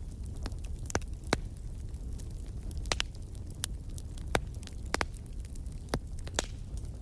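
Wood fire burning in a fireplace, crackling: irregular sharp pops, about eight, over a steady low rumble of the flames.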